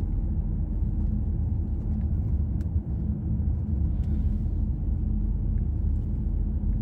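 Steady low rumble of a car heard from inside the cabin while driving: engine and road noise, with a faint steady hum.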